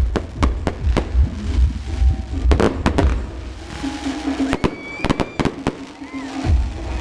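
Fireworks display: rapid sharp cracks and bangs of bursting shells, thick through the first three seconds, then thinning to a few scattered reports with a short cluster about five seconds in.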